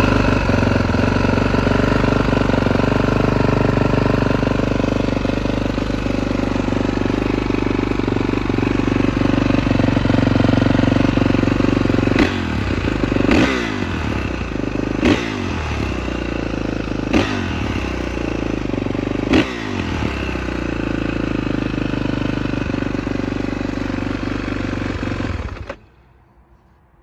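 2020 Kawasaki KX450's single-cylinder four-stroke engine running on its newly installed battery, idling steadily, then given five quick throttle blips from about twelve seconds in, and shut off abruptly near the end.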